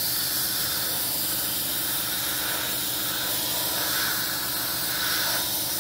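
Airbrush spraying a base coat of paint: a steady, even hiss of air and atomised paint that switches on abruptly and holds constant.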